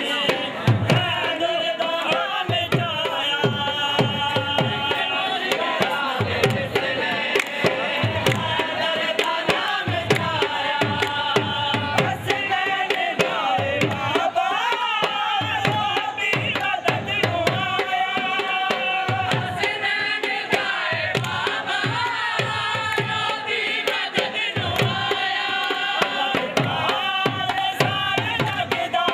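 Dhol drum beaten in a steady dance rhythm, with a pitched melody line over it.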